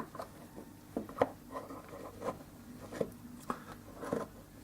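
Scattered light clicks and taps of a plastic fuel flap being handled, its edges pushed into the grooves of the hinge.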